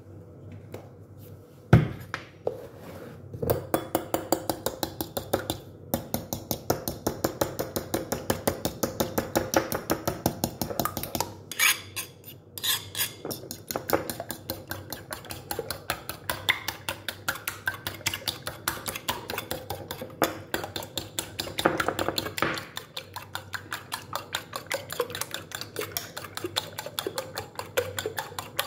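A metal utensil beating raw eggs in a ceramic bowl, clinking against the bowl in a fast, steady rhythm, with one louder knock about two seconds in.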